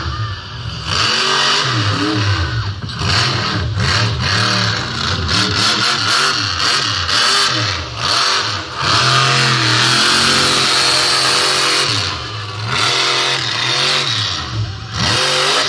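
Monster truck engine revved hard again and again, its pitch rising and falling with each throttle blip, held at high revs for a second or so near the middle, as the truck spins in the dirt.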